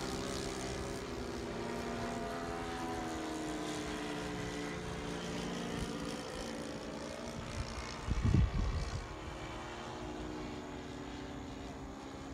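Engines and propellers of several radio-controlled model warplanes droning overhead, their pitch slowly rising and falling as the planes circle. About eight seconds in there is a short burst of low rumble, the loudest moment.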